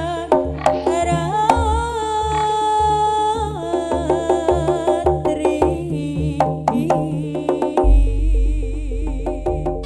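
Live Jaranan accompaniment music, a steady rhythm of drums and percussion under a held, wavering melody line. A deep low note comes in near the end.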